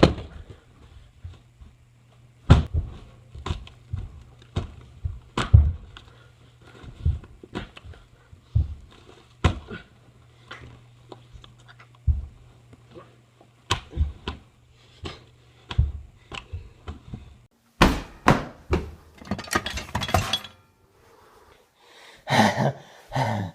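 A bag being bashed: a series of dull thuds at irregular spacing, roughly one a second. Near the end comes a burst of rapid rustling and knocking.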